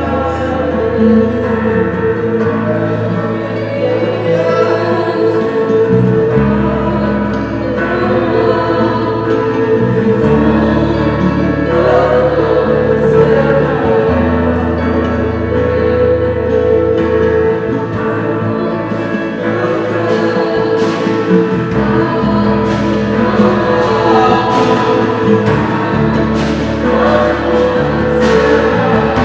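Live worship music: sustained keyboard chords over a bass note that changes every few seconds, with many voices singing along.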